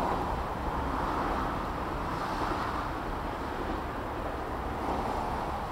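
Steady road traffic noise, vehicles passing with no bell or tone sounding.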